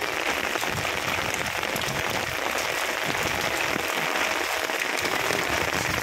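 Hail and heavy rain pelting a rooftop floor and plastic plant pots: a dense, steady patter of countless small hits.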